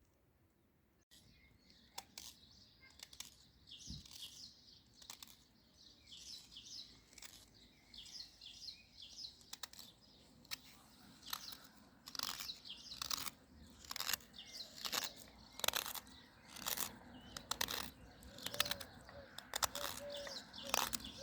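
Small birds chirping and singing steadily, over repeated sharp cutting strokes of a blade into olive wood at about one a second, which grow louder in the second half.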